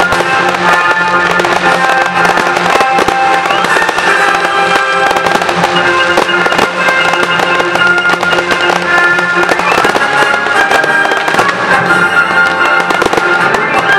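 Fireworks display with aerial shells and rising comets popping and crackling in quick succession, over loud film-theme music.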